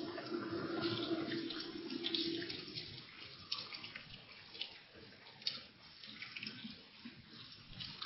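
Rain falling and splashing on wet ground, with scattered drips ticking close by. It grows quieter about three seconds in.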